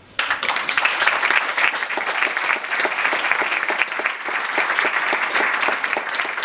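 Audience applauding: dense, steady clapping that breaks out suddenly and stays even throughout.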